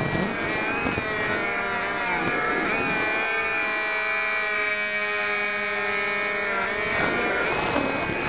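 Electric motor and propeller of a Firebird Delta Ray RC plane whining in flight, heard from a camera mounted on the plane. The whine holds a steady pitch through the middle and shifts in pitch about a second in and again near the end as the throttle changes.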